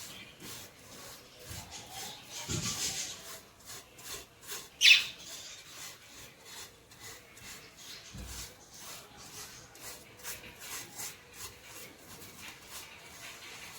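Rubbing and scraping on a hard surface, made up of many short scratchy strokes, with a louder rough stretch about two and a half seconds in and one sharp, loud scrape about five seconds in.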